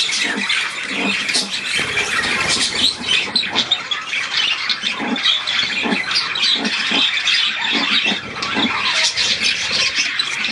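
A flock of budgerigars chattering and squawking nonstop, many high calls overlapping.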